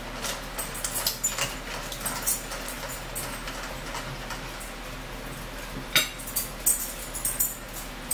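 Close-up eating sounds: baked chicken pulled apart by hand, mouth smacks and a paper napkin handled, heard as a string of sharp clicks and crackles. The loudest cluster comes about six seconds in.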